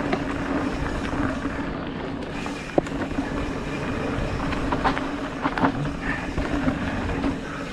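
Mountain bike rolling along a dirt singletrack: a steady tyre hum over a low rumble, with a sharp knock about three seconds in and a few clicks and rattles from bumps around five seconds in.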